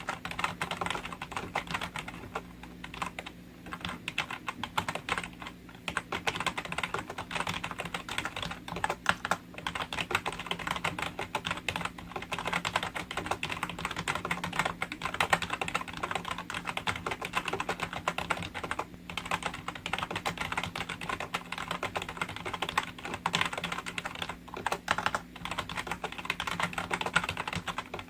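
Continuous rapid typing on a Logitech G213 membrane keyboard: a dense run of key clacks with a few short pauses.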